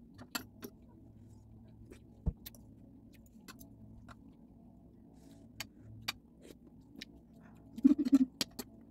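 Metal fork and spoon clinking and scraping against a plate while eating, in scattered light clicks, with a louder knock about two seconds in and a quick run of clinks near the end.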